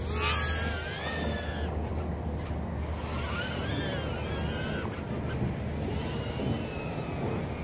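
Micro brushless quadcopter's motors and three-blade propellers whining in flight, the pitch rising and falling again and again with the throttle, over a steady low rumble.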